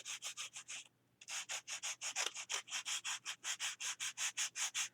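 Sandpaper rubbed back and forth over the page edges of a composition book, in quick, even rasping strokes about four a second, with a short pause about a second in.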